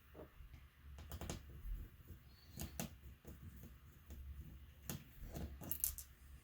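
Faint, irregular light clicks and taps of plastic laptop parts and tools being handled during disassembly, over a steady low hum.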